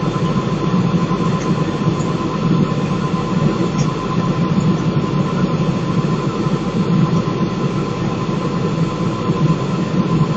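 Laboratory fume hood extraction fan running: a steady low rushing hum with a thin, even tone above it.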